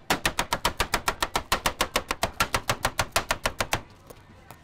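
Knife chopping rapidly and evenly on a cutting board, about eight strokes a second, stopping a little before the end.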